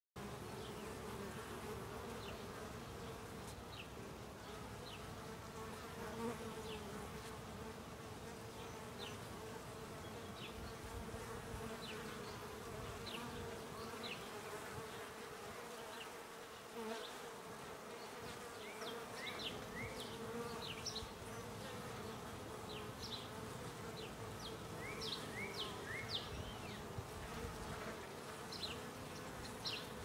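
Honeybees humming at the hive entrance: a steady drone of many beating wings. Short, high chirps sound over it, more often in the second half.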